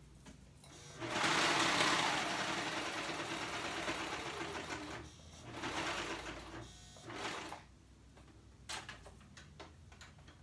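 Brother cover stitch machine stitching: one long run of about four seconds, then two short runs, topstitching the folded sides of a pocket. A few light clicks follow near the end.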